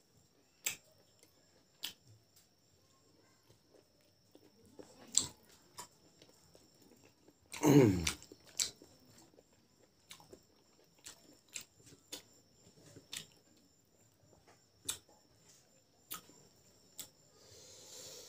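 Close-up mouth sounds of a person eating rice and boiled pork by hand: chewing with scattered short wet smacks and clicks, and one longer, louder wet sound falling in pitch about eight seconds in.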